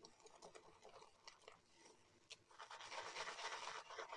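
Shaving brush swirling soap into lather in a ceramic lather bowl: a faint, soft, scratchy swishing with small clicks, becoming denser and louder about two and a half seconds in.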